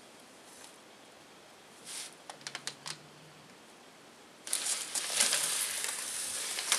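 Kittens rustling and crinkling a Christmas stocking and its contents: a few light taps and clicks, then, a little past halfway, a loud continuous crinkling.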